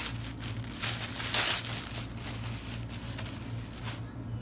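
Plastic and paper wrapping crinkling in irregular bursts as a wrapped package is handled and lifted out of a cardboard box, dying down near the end.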